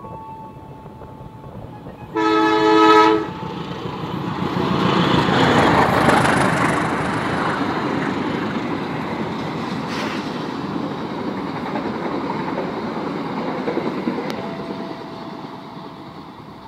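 Passenger train sounds one blast of its horn, a chord about a second long, as it approaches, then passes at speed with a rising rumble and the clatter of its wheels on the rails, which holds steady and fades away near the end as it recedes.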